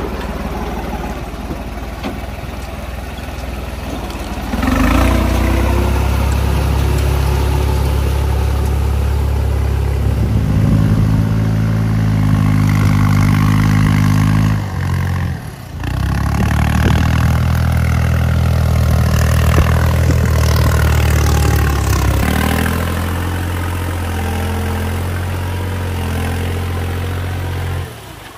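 Farm tractor diesel engines running hard under load, towing through deep mud and water. The engine note holds steady and grows louder about five seconds in, with a brief break about halfway through.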